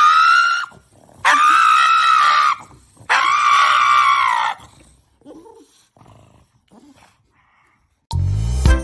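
Pug giving three long, high-pitched howling cries, the middle and last ones over a second each. Music starts near the end.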